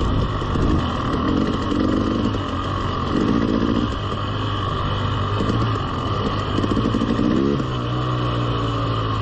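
Two-stroke 300cc enduro dirt bike engine running at low trail speed, with several short throttle blips and a brief rise in revs about seven and a half seconds in.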